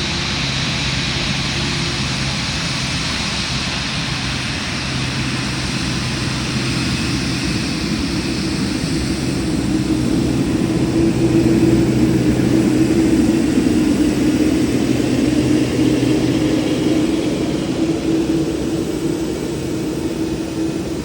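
Boeing 787-9 airliner's jet engines running in a steady rush with low droning tones. A high whine fades through the first half, and the noise swells to its loudest about halfway through before easing off as the aircraft passes.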